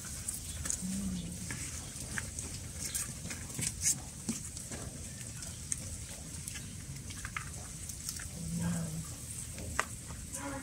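Several cats chewing and crunching pieces of fish, an irregular scatter of small wet clicks and crunches.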